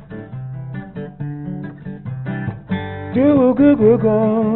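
Acoustic guitar playing the opening chords of a song, plucked and strummed. About three seconds in, a wordless vocal line with vibrato joins and becomes the loudest part.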